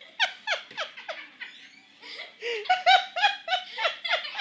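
High-pitched laughter in a quick run of giggles, several a second, each note falling in pitch, with a louder stretch about halfway through.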